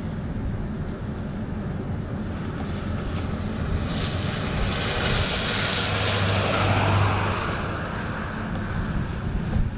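A vehicle passes on a snowy highway: a tyre hiss swells and fades over about four seconds in the middle, with a falling pitch as it goes by. A steady low rumble of traffic or wind runs underneath.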